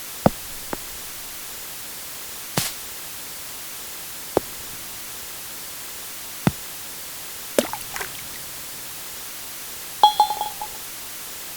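Golf sound effects: a series of separate sharp golf ball and club impacts. A short run of quick bounces comes about two thirds of the way in, and a louder rattle with a brief ringing ping near the end. A steady hiss sits underneath.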